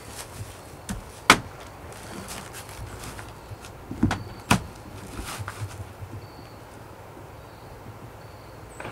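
Footsteps and knocks on concrete steps as a boy climbs up and sits down: a sharp click about a second in, then two dull thumps about half a second apart near the middle.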